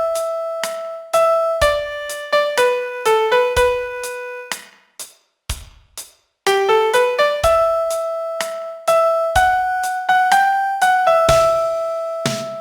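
Piano playing a single-note melody, one struck note at a time with short quick runs between held notes. The melody breaks off for about two seconds in the middle, then resumes, and low notes join under it near the end.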